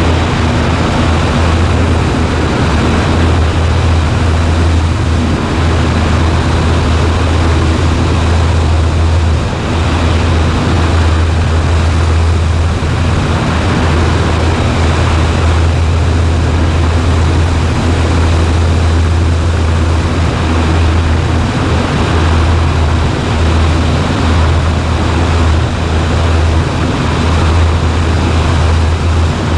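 Cessna 140A's single piston engine and propeller droning steadily, heard from inside the small cabin in flight.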